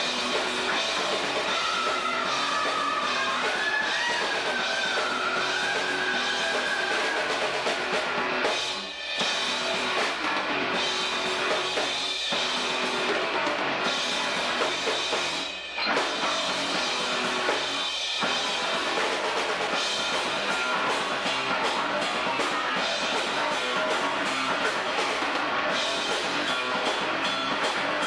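Rock band playing live: drum kit, electric guitar and bass guitar, with a high, wavering melodic line held over the first few seconds. The band drops out briefly a couple of times, about a third of the way in and again about halfway through.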